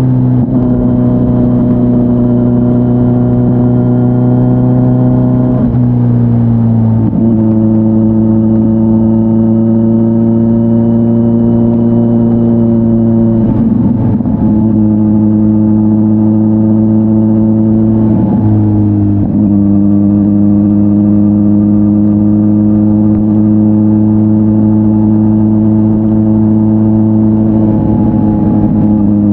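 Kawasaki Z900's inline-four engine through an SC-Project S1 slip-on exhaust, heard from the rider's position while riding at fairly steady revs. The note is falling right at the start, then holds, with a few brief breaks where the pitch steps down, about every five or six seconds.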